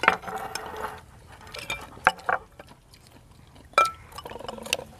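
Chopsticks and spoons clinking against ceramic rice bowls and plates during a meal. A few scattered sharp clinks, one near the end ringing briefly like a struck bowl.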